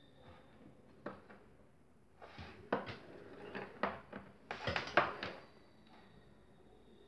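Handling noise from a power cord and multimeter test leads being gripped and moved on a bench: scattered clicks, taps and rustles, busiest a little after the middle, with no motor running.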